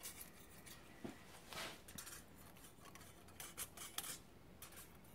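Several faint, short scrapes of a thin steel feeler gauge being slid along a steel flat plate and poked under the edges of a conrod. The mechanic is checking the rod for bend or twist.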